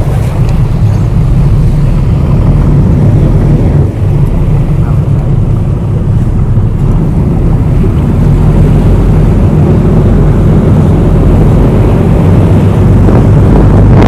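Boat engine running at a steady drone, with wind buffeting the microphone.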